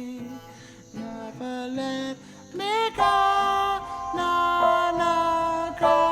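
Music: a sparse song passage of held notes with no strong beat, with a quick upward swoop about three seconds in, after which it grows louder.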